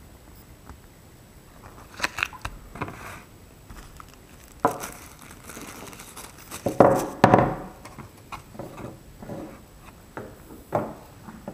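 Paper and cardboard packaging being handled on a wooden table: pages and paper inserts rustling and crinkling, with scattered light knocks as pieces are set down. The loudest flurry of rustling comes about seven seconds in.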